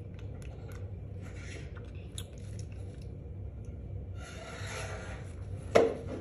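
Plastic dolls and toy furniture being handled: small clicks and taps, a stretch of rustling about four seconds in, and one sharp knock near the end, over a steady low hum.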